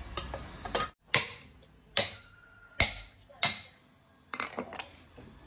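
A meat cleaver chopping through a fish on a thick wooden chopping block: four sharp chops less than a second apart, each with a brief ring. A few lighter knocks follow near the end.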